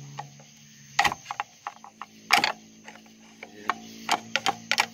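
Irregular sharp clicks and knocks from a large steel pry bar working against a gasket-sealed water pump on a car engine; the loudest knock comes a little past two seconds in, and several more come close together near the end. The pump is not yet coming loose.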